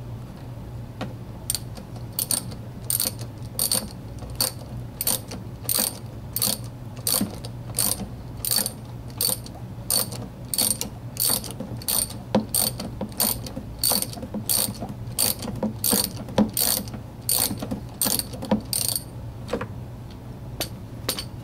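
Ratchet socket wrench clicking in quick strokes, about two a second, as it backs out a spark plug; the clicking stops shortly before the end.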